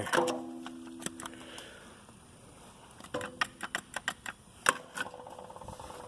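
Metal objects clinking and knocking against each other, with two impacts that leave metal ringing briefly: once at the start and again about three seconds in.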